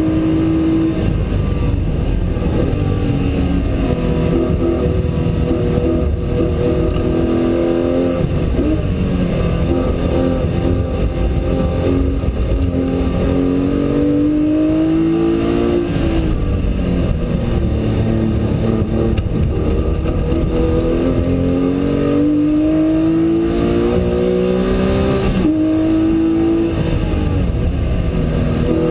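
Porsche 997 GT3 RS race car's flat-six engine, heard from inside the cabin under hard acceleration. Its note climbs through the revs and drops sharply at each upshift, several times, over a steady low rumble of road and drivetrain noise.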